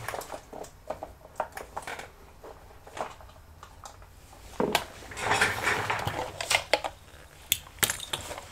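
Small tools being handled on a repair bench: scattered light clicks and clinks, which grow denser a little past the middle.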